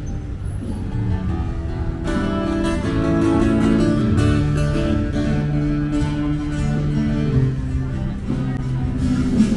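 Guitar-led music with plucked, strummed notes, coming in strongly about two seconds in over a low background rumble of street noise.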